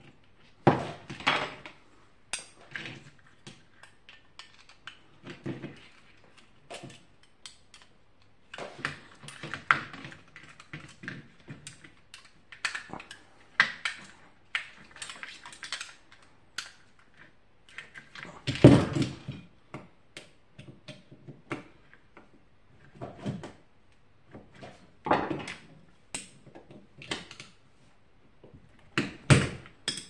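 Hand work on a small box fan's metal-cased motor with a screwdriver: irregular clicks, knocks and scrapes of metal and plastic parts being handled and set down, with the loudest knock about halfway through.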